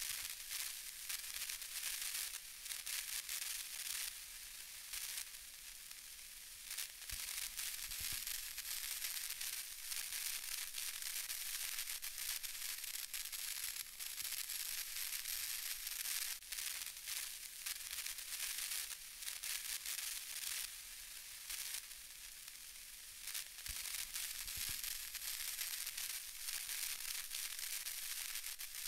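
Steady crackling static hiss, mostly high-pitched, with a couple of faint low knocks.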